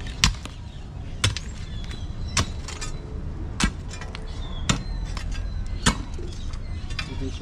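A digging tool struck into hard ground, six heavy blows about a second apart, while the burrow is dug open.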